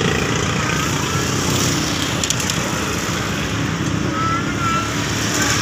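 Steady road traffic noise from passing vehicles, a constant rush with no letup, with a few short high chirps about two and four seconds in.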